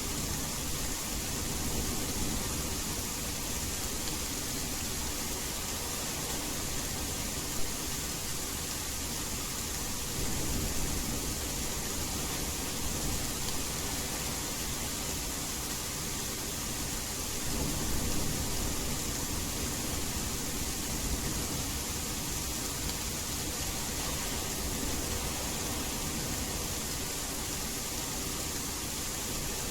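Steady rain hiss blended with white noise. Twice there is a low rumble of distant thunder, about a third of the way in and again past the middle, and one sharp tap comes early on.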